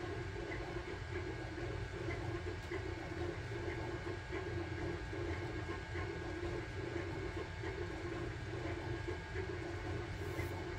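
Sunlu Terminator 3 3D printer running a print: a steady whir and hum of its stepper motors and cooling fans as the print head moves, with faint ticks about twice a second.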